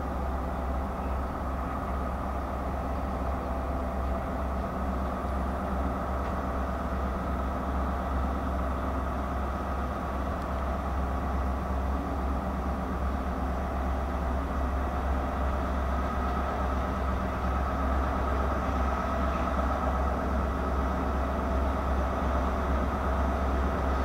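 Ex-HST Class 43 power car's diesel engine running steadily with a low drone and a steady higher tone, growing slightly louder toward the end.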